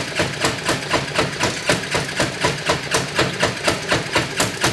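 Honda clone single-cylinder engine on a twin-engine go-kart running roughly with a loud, even knocking, about four knocks a second, over the engine noise. The crew soon finds a shaft key missing.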